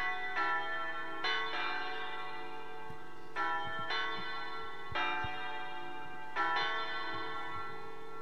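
Church bells tolling: about six strikes at uneven intervals, each ringing on and overlapping the next.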